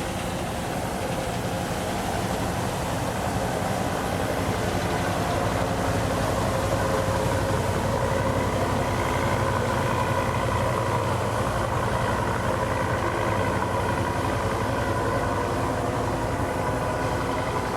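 Engine of a sand-dredging boat running steadily. It gets a little louder about five seconds in, and a higher steady tone comes up over it from about eight seconds in.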